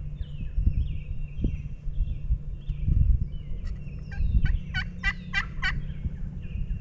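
A wild turkey gobbler gobbles once, about four seconds in: a fast rattling run of about six notes lasting under two seconds. Small birds chirp throughout with short falling notes, over a steady low rumble.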